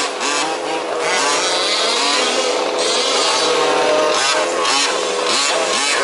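Several 1/5th scale RC off-road trucks' small two-stroke petrol engines revving up and down together as they race around the dirt track, the pitch rising and falling with the throttle.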